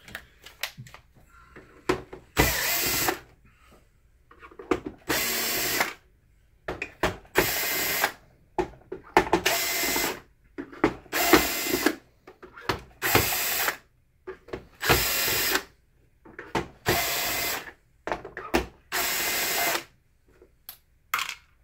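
Cordless drill-driver spinning screws out of a projector's plastic bottom case in nine short runs of about a second each, roughly every two seconds, with small handling clicks between them.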